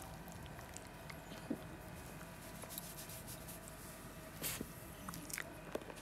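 Italian greyhound's faint mouth sounds close to the microphone: a few soft clicks and smacks of lips and tongue, the clearest about four and a half seconds in, over quiet room tone.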